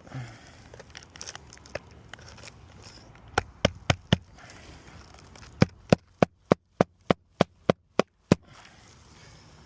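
Hammer driving roofing nails through an asphalt shingle: four quick strikes, a short pause, then a steady run of about ten strikes at roughly three a second.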